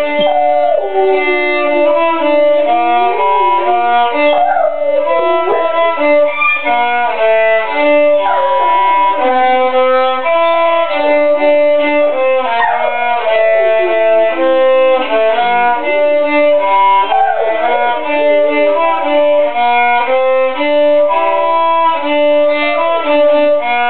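A violin playing a slow melody while a Labrador howls along with it, her sliding, wavering cries rising over the notes several times.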